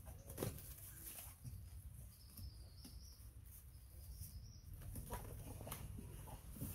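Leaves and thin branches of a small tree rustling and knocking in several short sharp bursts as monkeys climb it, with a faint high chirping call twice in the middle.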